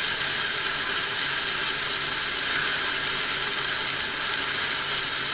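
Chicken breasts sizzling steadily in an Instant Pot's inner pot on the sauté setting.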